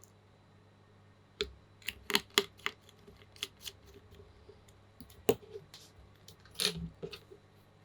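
Scattered sharp plastic clicks and clacks from handling mechanical keyboard parts during assembly, about a dozen irregular strokes with the loudest near the start and in the middle.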